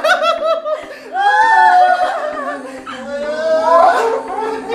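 Tearful laughter and crying voices. Quick short bursts of laughter come first, then a high voice rises and falls in long wavering cries.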